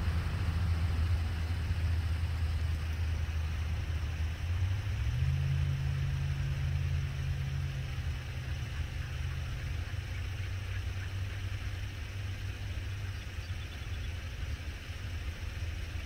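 A motor vehicle's engine idling with a steady low hum, its pitch shifting slightly about five seconds in.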